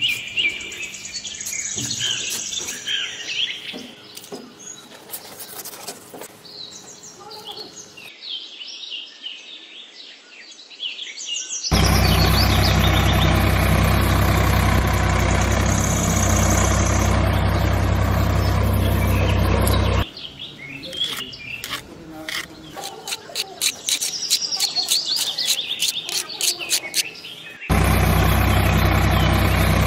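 Birds chirping over light scraping and clicking. A little under halfway in, a small electric motor starts up and runs loud and steady with a low hum for about eight seconds, then stops abruptly. It starts again near the end. It is the miniature DIY toy tractor's motor.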